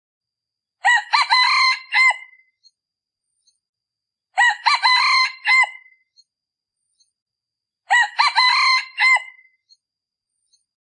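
A male decoy junglefowl rooster, of the kind kept to lure wild junglefowl, crowing three times, evenly spaced about three and a half seconds apart.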